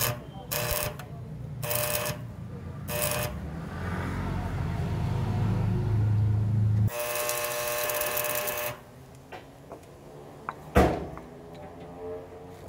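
Electric arc welding on a steel frame: several short buzzing arc strikes in the first three seconds, a low hum building, then one longer buzzing weld of about two seconds about seven seconds in. Near the end comes a single sharp metal knock.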